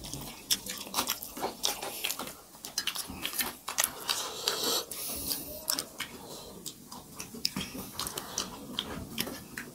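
People eating rice and dal by hand from steel plates: a steady stream of short, wet clicks from fingers mixing the rice and from chewing, with the odd knock of a steel bowl.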